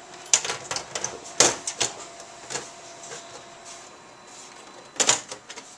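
Metal cover of a Lenovo ThinkCentre small form factor desktop case being lowered onto the chassis and pushed into place: a run of clacks and knocks of metal on metal, the loudest about a second and a half in, with a cluster of clicks near the end as it seats.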